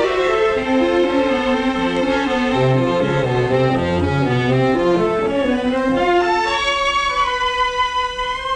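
Orchestral background music led by bowed strings: a descending melody over low cello and bass notes, rising about seven seconds in to a sustained chord.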